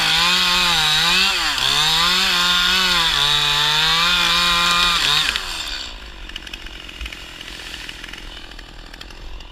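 Chainsaw running at full throttle, its pitch dipping and recovering as the chain is loaded, then falling to a quieter idle about five seconds in.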